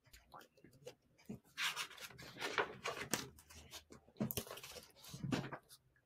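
Paper rustling and rubbing as a picture book's pages are handled and turned, in two soft spells of rustle with a few small ticks.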